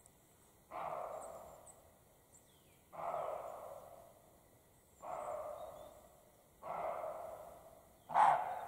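European roe deer barking: five dog-like barks about two seconds apart, each starting abruptly and trailing off. This is the call roe deer of both sexes give when startled or alarmed.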